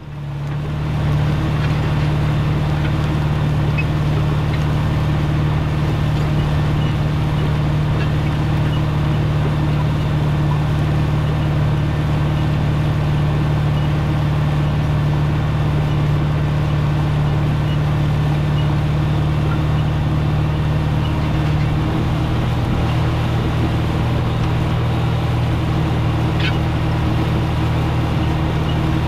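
Caterpillar 3208 turbocharged V8 diesel of a White 4-225 tractor running steadily under load while pulling a disc harrow. The sound fades in at the start.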